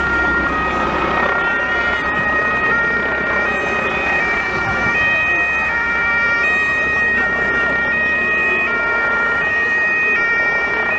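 Several police two-tone sirens sounding at once, each stepping between a high and a low note out of step with the others, over a steady high tone and a general noisy hubbub.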